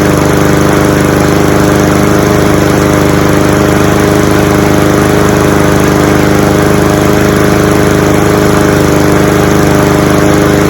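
Honda GCV190 single-cylinder mower engine on a Cub Cadet SC-700H walk-behind lawnmower running steadily at a constant speed after a cold start.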